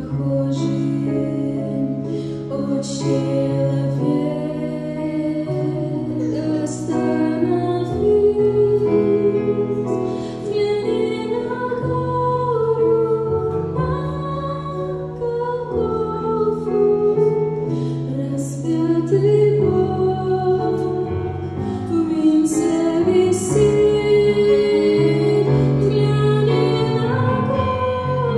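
A woman singing a slow Russian Christian song over an instrumental accompaniment of sustained low notes.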